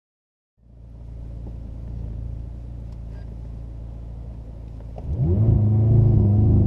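McLaren 540C's twin-turbo V8 running steadily at low revs, then about five seconds in the revs climb sharply and it runs much louder at high revs, as the car starts its acceleration.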